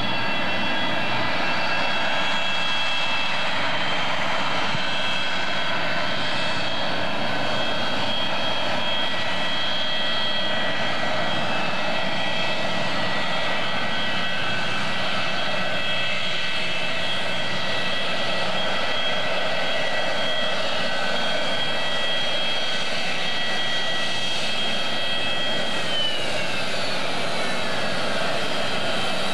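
Boeing 737-200's Pratt & Whitney JT8D turbofan engines at taxi power: a steady high whine over a constant rush of jet noise. Near the end the whine drops in pitch as the engines spool down.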